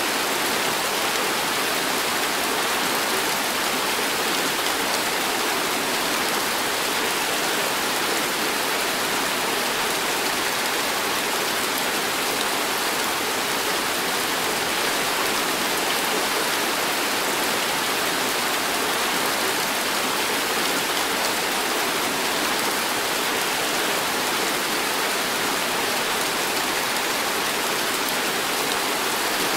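Heavy tropical rain falling steadily: a dense, even hiss that holds without let-up.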